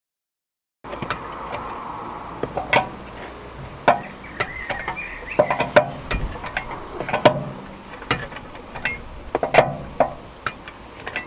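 Metal clinks and clanks of a socket wrench on a car's wheel bolts as they are worked loose, irregular sharp clicks, some ringing briefly. It begins after about a second of silence.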